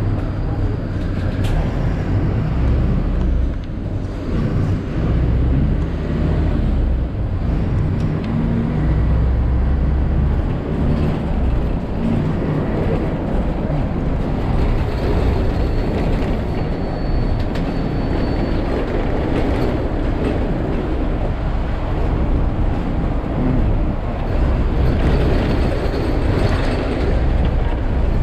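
Inside a moving city bus: steady low engine rumble and road noise.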